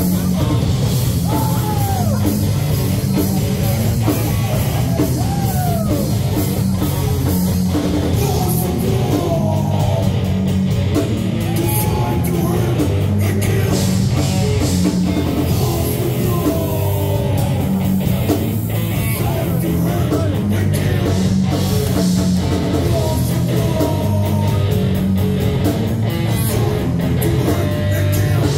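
Heavy metal band playing live at a steady, loud level: electric guitar, bass and drum kit, with a vocalist singing over them.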